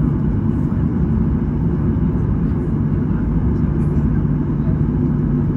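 Boeing 737 cabin noise while taxiing: a steady low rumble of the jet engines at taxi power and the aircraft rolling, heard from inside the cabin.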